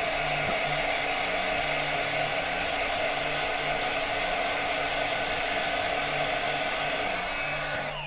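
Craft heat tool (embossing heat gun) blowing steadily to dry watercolor paint on a cardstock heart, a fan-motor hiss with a faint steady hum; it is switched off right at the end, its pitch falling away.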